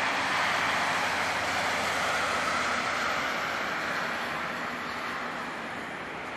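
Jet engines of a Boeing 767-300ER airliner as it touches down, heard as a steady rush that eases off slightly over the last couple of seconds.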